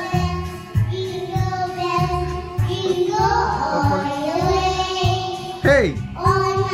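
Young girls singing into karaoke microphones over a backing track with a steady bass beat. A loud falling swoop comes near the end.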